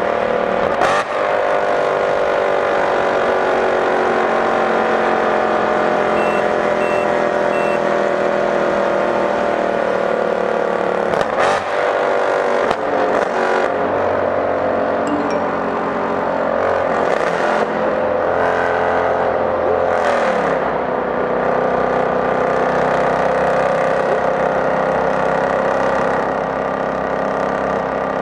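Mercedes-Benz C63 AMG's 6.2-litre V8 running hard at high speed, a steady many-toned engine note that slowly drops in pitch, with a few short breaks such as gear changes. The sound rings off the walls of a road tunnel.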